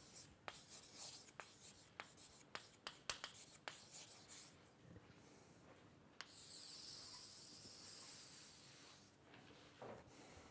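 Chalk writing on a chalkboard: quick taps and short scratches as letters are formed, then one long steady scrape of about three seconds as the chalk is drawn along in a single stroke.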